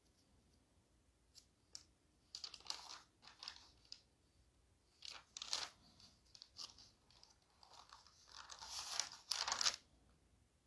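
Faint, irregular rustling and crackling close to the microphone, in uneven bursts with a few short clicks in the first couple of seconds. The loudest burst comes about nine seconds in.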